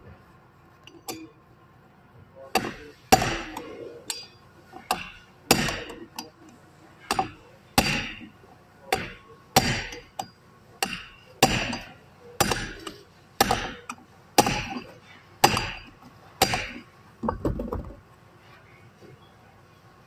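Hammer tapping a socket-type driver down into the bore of a Toyota Land Cruiser power steering housing: a long run of sharp metal strikes, about two a second. It stops a couple of seconds before the end.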